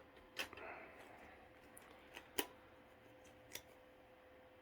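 A few faint, irregular clicks and ticks, the sharpest about two and a half seconds in, over a faint steady hum.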